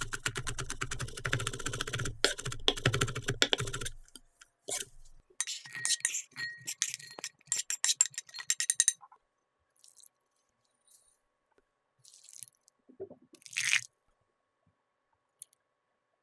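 A chef's knife rapidly mincing garlic cloves on a wooden cutting board for about four seconds. Then a wooden spoon scrapes chopped peppers, leek and garlic off a ceramic plate into a glass bowl, followed by sparse light sounds and a brief pour of liquid into the bowl near the end.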